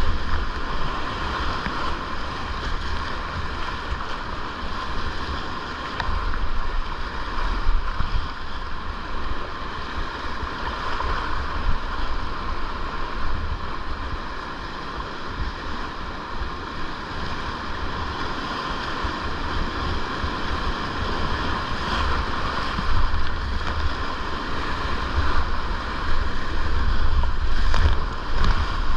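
River rapids rushing steadily, heard close from a kayak in the whitewater, with low buffeting on the microphone. Near the end it swells with splashes as the kayak hits waves and the paddle strokes.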